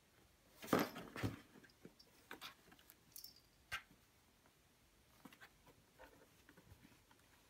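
Cat and kitten scuffling against a cardboard box, paws and claws scraping and tapping the cardboard. A short cluster of louder scrapes comes about a second in, then scattered light ticks and taps.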